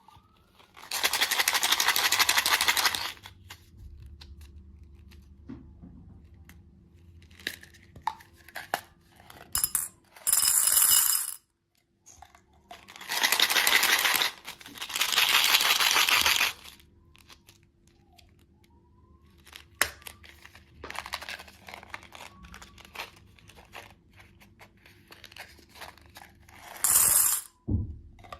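Candy and its packaging being handled: several loud rustling, tearing spells of one to three seconds each, with scattered small clicks and clinks of candies between them.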